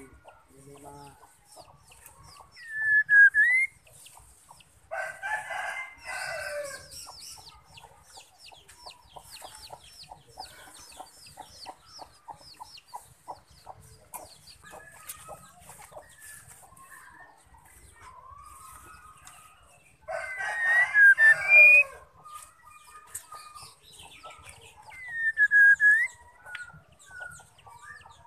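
White-rumped shama giving short swooping whistles, about three seconds in and again near the end. Twice in between, at about five and twenty seconds, a rooster crows loudly in the background, with fainter chirps and ticks in the gaps.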